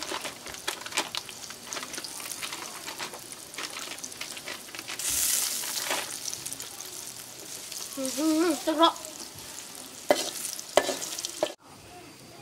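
Plastic bag and food packet crinkling and rustling as they are torn open with the teeth and handled, with a louder ripping hiss about five seconds in. A brief child's voice sounds about eight seconds in.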